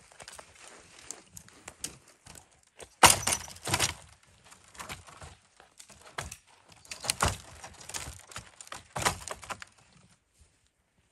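A string of irregular sharp knocks and cracking impacts, the loudest cluster about three seconds in, with more strong ones about seven and nine seconds in.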